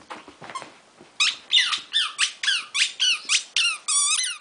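Squeaky dog toy squeaked over and over as a dog chews it, about a dozen sharp high squeaks at roughly four a second, starting about a second in, the last one longer and wavering.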